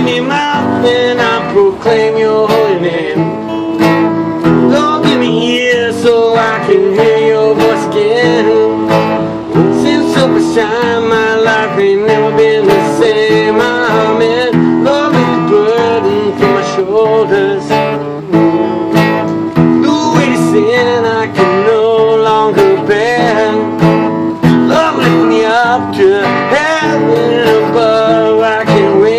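Acoustic guitar strummed steadily, playing a gospel song without vocals.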